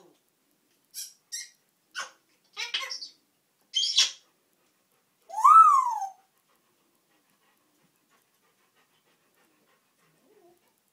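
African grey parrot making a string of short clicks and squawks, then one loud call that rises and falls in pitch.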